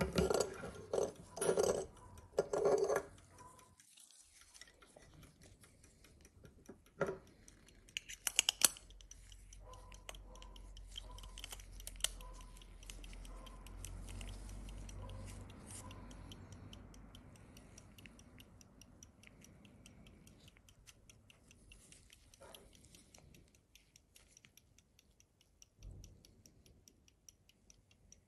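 James Cowan silver verge fusee pocket watch ticking, a steady, fast and even tick, running. Louder handling clicks and rubs from fingers on the silver cases come in the first three seconds and again around eight seconds in.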